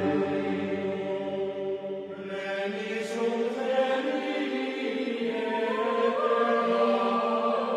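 Background music of slow, held chant-like vocal tones, moving to a new chord about two seconds in.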